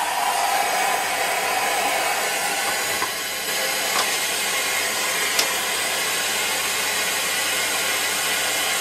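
Roberts R747 transistor radio, just switched on after repair, giving out loud steady static hiss from its speaker while being tuned between stations. A whistle slides slowly down in pitch over the first few seconds, and there are a few faint clicks.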